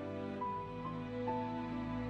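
Soft background music: held notes under a slow melody.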